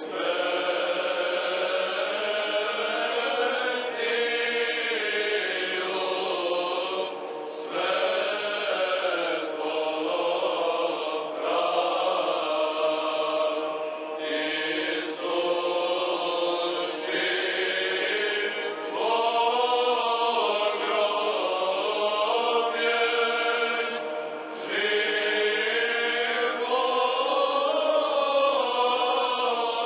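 Choir singing Orthodox liturgical chant: slow, flowing melodic phrases, each held for several seconds, with short breaks between them.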